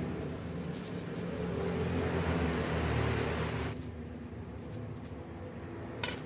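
Steady low rumble like a vehicle engine running, with a hiss that drops away a little past halfway, and one sharp click near the end.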